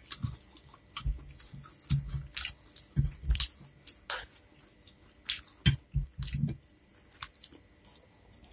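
Close-miked chewing of a mouthful of spicy instant fried noodles, with wet mouth sounds and scattered sharp clicks of a wooden spoon on the plate.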